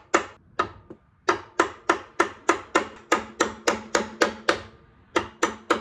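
A hammer striking an Allen wrench used as a makeshift punch to drive out a stuck pin in a car's shifter linkage. It is a steady run of sharp metal-on-metal taps, about three a second, with a short pause near the end. The pin is not moving.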